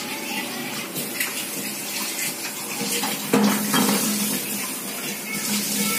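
Hot oil sizzling in a pan, crackling as mustard seeds and lentils fry in it for a tempering. The sizzle jumps louder about three seconds in as the seeds go into the oil.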